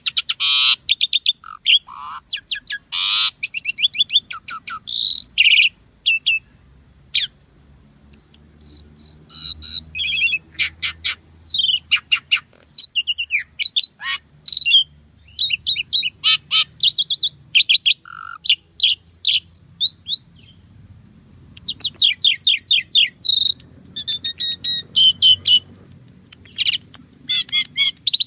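Asian pied starling (jalak suren) singing a varied, chattering song: fast rattled note series, rising and falling whistled glides and sharp chirps, delivered in bursts with brief pauses.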